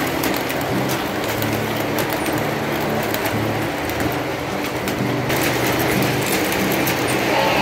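Williams O-gauge GG1 locomotive and passenger cars running on three-rail track: a steady rolling rumble with many small clicks from the wheels, and a low motor hum that comes and goes.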